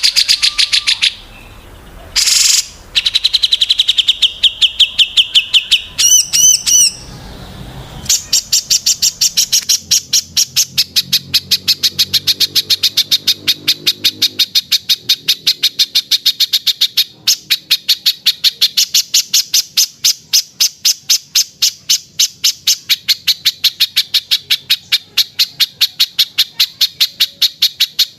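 Small songbirds calling: a few seconds of fast high trills, one falling, and a few looping whistled notes. From about eight seconds in comes a long unbroken run of rapid, evenly repeated high chips, several a second.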